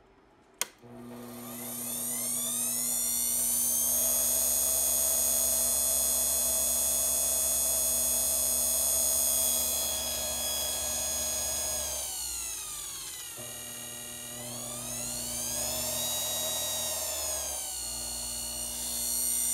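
A click as the mini lathe is switched on, then its brushed motor spins up with a rising whine and runs steadily. It slows about ten seconds in, speeds up again, slows once more and comes back up near the end. The motor is running on a brush whose broken spring has been re-coiled to press it against the armature again.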